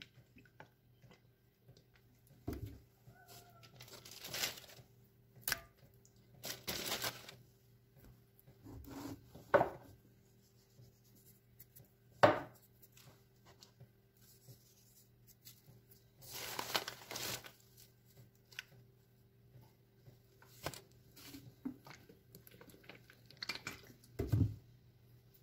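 Intermittent rustling and crinkling of paper and packaging as raw pork steaks are seasoned and handled in a pan, with a few sharp knocks, the loudest about halfway through. A faint steady hum runs underneath.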